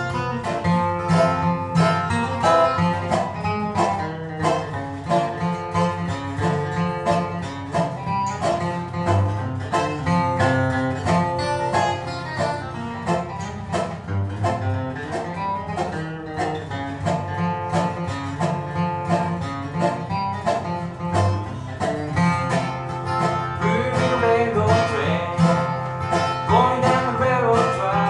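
Bluegrass instrumental on acoustic guitar and dobro: steady strummed guitar rhythm under quick picked melody lines, with sliding, bending notes toward the end.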